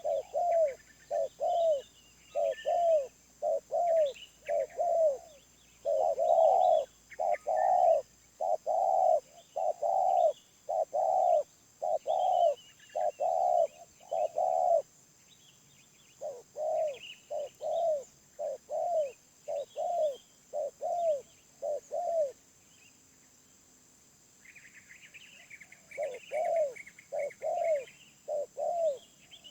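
Wild spotted dove cooing over and over, in runs of quick coos broken by short pauses, with a longer pause about three-quarters of the way in. Smaller birds chirp faintly in the background, and one twitters steadily near the end.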